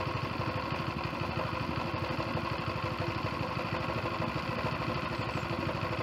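Harbor Freight Predator 212 single-cylinder four-stroke engine running steadily with an even pulsing beat, shaking hard on the board it is mounted to, the vibration typical of a single-cylinder engine.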